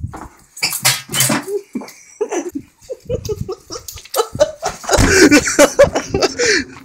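Loud laughter in repeated rising and falling bursts, strongest in the second half, over rough handling and movement noise.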